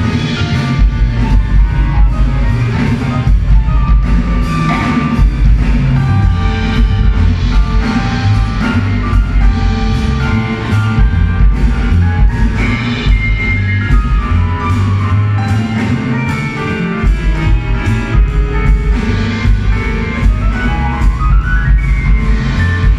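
Live band music with a drum kit keeping a steady beat, with a rising melodic run near the end.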